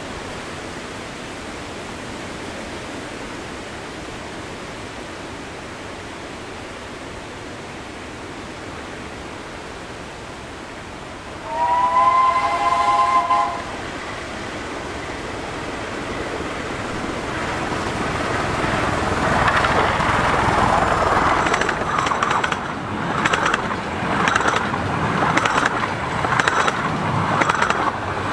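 A one-third-scale 15-inch gauge steam locomotive sounds its whistle about twelve seconds in: a chord of several notes held for about two seconds. The train then approaches at speed, its running noise growing steadily louder and breaking into a rapid, regular pulsing beat near the end.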